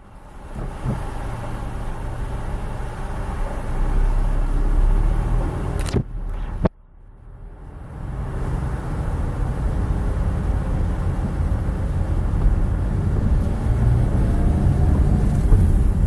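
Car driving slowly on a paved road: a low, steady rumble of engine and tyres. The sound drops out abruptly at the very start and again about six to seven seconds in, then builds back up.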